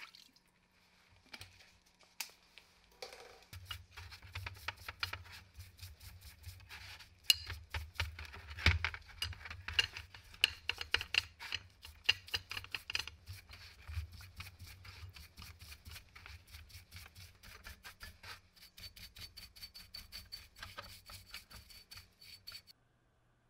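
A stiff-bristle brush scrubbing the aluminium gearbox housing and gear shafts of a hammer drill in a tray of cleaning liquid: rapid wet scratching strokes, several a second, with light clinks of the metal parts. It is loudest about a third of the way in and stops suddenly near the end.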